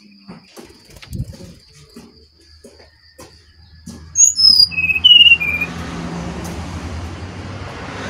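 Brown-chested jungle flycatcher song: a quick run of loud, clear whistled chirps about four seconds in, after a few faint clicks. Just after the chirps, a steady low rumble with a hiss sets in and carries on.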